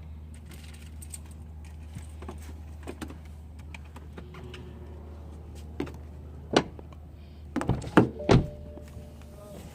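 Door lock actuators of a 2008 BMW 328i clicking as the central locking is tested on a newly replaced driver-door actuator: one sharp click about six and a half seconds in, then three loud clacks in quick succession around eight seconds, over a low steady hum.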